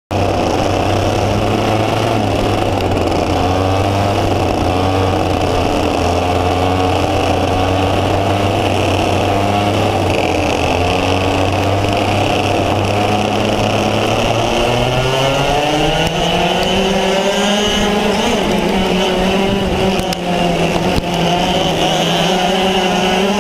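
Racing kart engine heard onboard, with other karts' engines close by: a steady note for the first fourteen seconds or so, then rising in pitch as the karts speed up.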